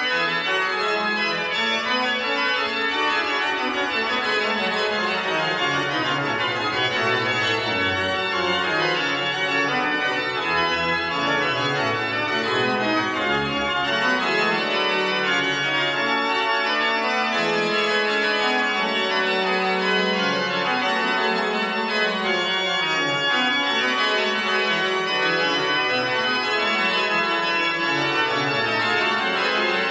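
Historic Holzhey pipe organ playing dense, many-voiced music at a steady, full volume, its bass lines stepping downward again and again.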